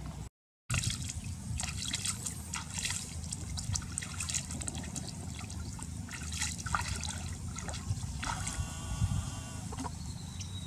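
Water splashing and trickling in many short splashes as hands are rinsed in shallow pond water and feet wade through it.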